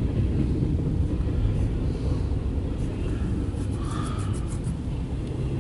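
Steady low rumble of a CSX intermodal freight train rolling through a grade crossing, heard from inside a car, with a short run of light clicks about four seconds in.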